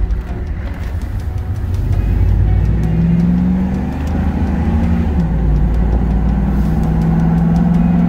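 Hummer SUV driving, with steady engine and road rumble. The engine note climbs about three seconds in, drops a couple of seconds later, then holds steady.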